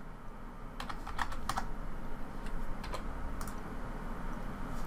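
Computer keyboard keys tapped a handful of times with pauses between, as dimension values are typed in, over a low steady hum.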